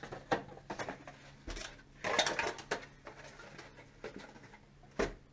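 Parts and packaging being handled around an engine bay: scattered light clicks and clatters, a rustling clatter about two seconds in, and a sharp knock near the end.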